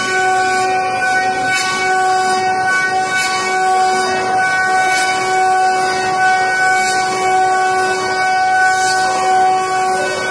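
Multi-spindle 5-axis CNC wood carving machine cutting: a row of router spindles whines at a steady pitch while the bits chew into the wooden blanks, and the hissing cutting noise swells briefly every second or two.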